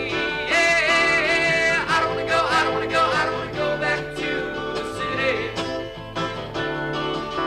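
Live band music: strummed acoustic guitar with keyboard and vibraphone, and a male voice singing held, wavering notes.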